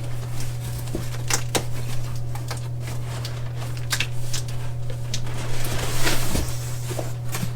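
Scattered sharp clicks and rustles of parts and packaging being handled, over a steady low hum.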